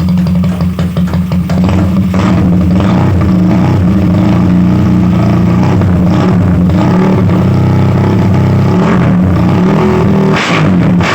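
Skygo PCT 150cc scooter engine and exhaust running loud, revved in short blips a few times over a steady idle.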